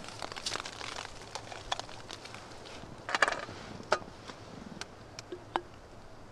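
Soju poured from a bottle into an opened aluminium beer can: a brief splash of pouring about three seconds in, among light clicks and knocks of the can and bottle and rustling of clothing.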